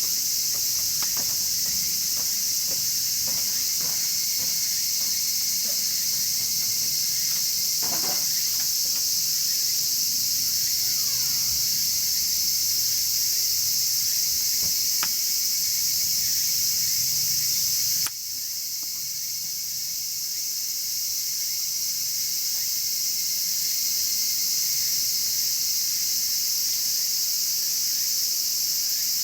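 Steady high-pitched insect chorus, with scattered faint crackles and pops from a wood fire burning in a chiminea. The chorus drops suddenly about two-thirds of the way through, then slowly comes back up.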